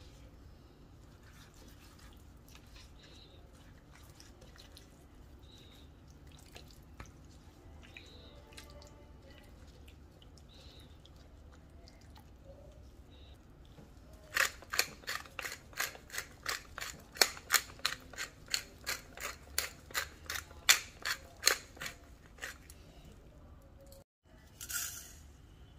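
Pepper mill grinding black peppercorns: a fast run of crunching clicks, about four a second, starting about halfway through and lasting some eight seconds. Before it, faint wet sounds of fish fillets being handled in marinade.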